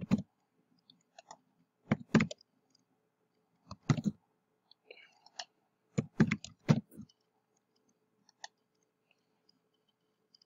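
Computer keyboard typing in short bursts of keystrokes, a cluster every couple of seconds, stopping about seven seconds in; a few single clicks follow.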